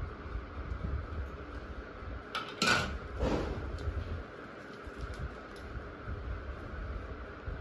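Electric fan running steadily, with a brief louder clatter and rustle a little under three seconds in and a few light clicks.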